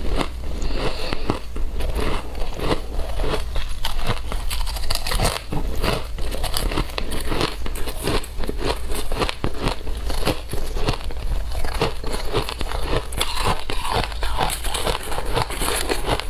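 A person biting and chewing shaved ice: a dense, unbroken run of crisp crunches and crackles.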